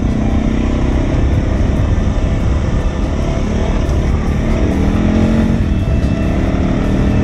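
Suzuki DR650's single-cylinder four-stroke engine running under way on a dirt track, its pitch rising and then falling around the middle as the throttle is worked, over a heavy low rumble of wind on the microphone.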